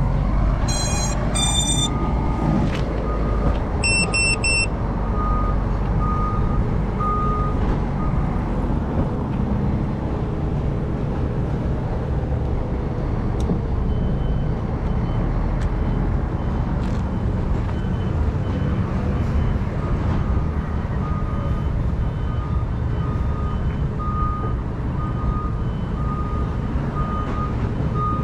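Steady wind buffeting the microphone, with a thin electronic beep repeating about every two-thirds of a second through long stretches.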